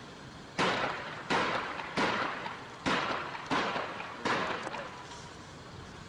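Six sharp gunshots in a steady sequence about two-thirds of a second apart, each followed by a short echo.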